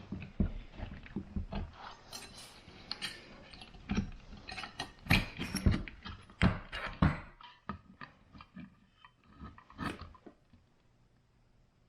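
Irregular clicks, taps and knocks of a wrench and metal parts being handled as a bracket is unbolted from an ARB dual portable air compressor, dying down near the end.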